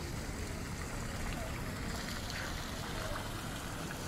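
Water from a small public fountain's jets splashing steadily into its stone basin, over a low background rumble.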